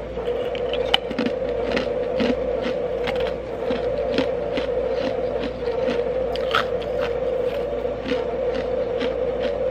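Nugget ice being chewed and crunched between the teeth close to the microphone, about two to three crisp crunches a second. A steady hum underneath is the Igloo countertop ice machine running while it makes another batch.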